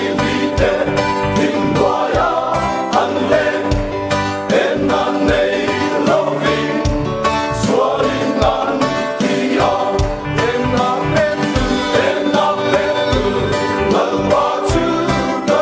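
Men's choir singing with instrumental accompaniment and a steady beat.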